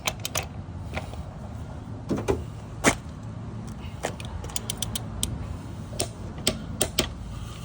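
Scattered sharp metallic clicks and taps of a wrench and socket working on a car wheel's lug nuts, the loudest about three seconds in, over a steady low rumble.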